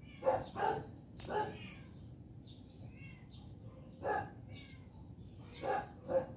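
A dog barking: six short barks, three in quick succession at the start, one about four seconds in, and two more near the end.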